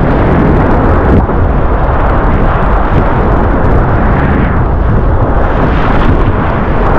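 Loud rushing of broken whitewater around a surf kayak, with wind rumbling heavily on the GoPro's microphone and splashes from paddle strokes.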